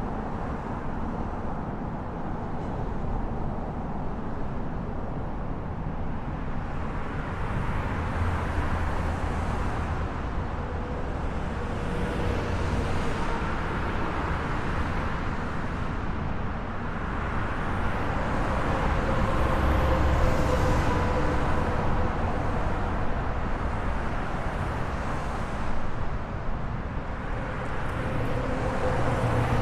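Steady highway traffic noise: a continuous tyre-and-engine rush from passing cars and trucks, swelling and easing as vehicles go by, loudest about two-thirds of the way through.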